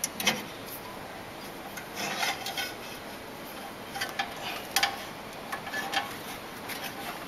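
Stainless-steel auger screw and hopper parts of a powder filling machine being handled during disassembly: scattered metal clicks, knocks and scraping as the screw is worked out of the powder-caked feed tube. There are clusters of clicks about two seconds in and again around four to five seconds in.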